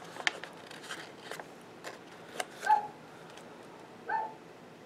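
A dog barks twice, short single barks about two and a half seconds apart, the first the louder. Between them come light clicks and rustles of sticker sheets and paper being handled.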